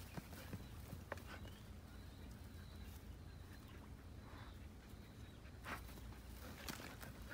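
Faint rustling and crackling of dry grass stalks as a dog pushes its head into a grassy bank, with a few scattered soft clicks.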